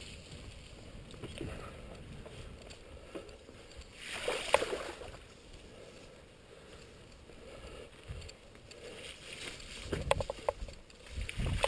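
Mountain bike rolling along a dirt singletrack, heard from a camera on the bike or rider: a steady low rumble of tyres and wind on the microphone. There is a louder rustling swell about four seconds in and a run of rattling clicks and knocks near the end.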